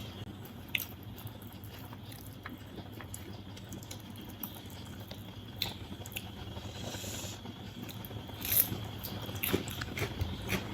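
A person chewing biriyani, with scattered small clicks and mouth noises; the loudest comes a little after eight seconds in.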